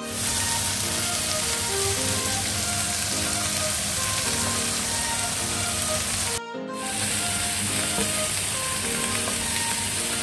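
Pieces of lamb frying in hot oil with cumin seeds: a steady sizzle. It breaks off briefly about six seconds in and resumes as seasoned lamb steaks sear in a second pan.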